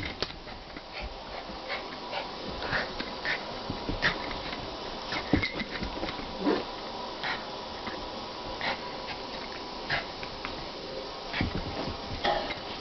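Two poodles playing together, making short dog noises that come in scattered bursts, a few every couple of seconds.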